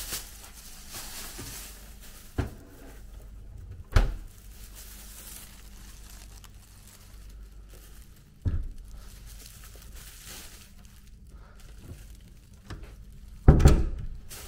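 Plastic carrier bag rustling as it is carried, with a few sharp thumps, the loudest near the end, over a low steady hum.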